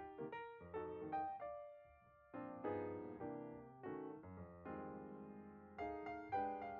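Background music: soft piano, struck chords and notes fading after each strike.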